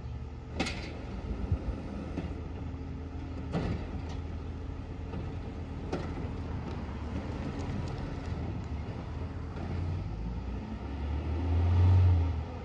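Garbage truck working down the street: a steady low diesel rumble with a few sharp knocks, swelling to its loudest about twelve seconds in.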